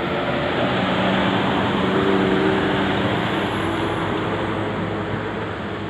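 Road traffic noise with a heavy vehicle's engine running close by, a steady drone over the rumble of tyres and road. It swells about two seconds in and eases off toward the end.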